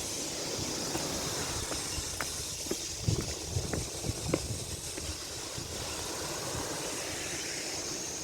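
Steady hiss of sea surf and wind along the shore, with a few light knocks about three to four seconds in.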